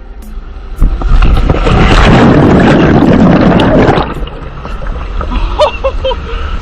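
A loud rush of splashing water lasts about three seconds, then stops, leaving the quieter noise of the water park with distant voices.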